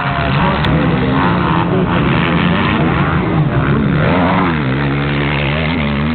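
Several motocross dirt bike engines racing on the track, revving up and down through the gears, their tones overlapping.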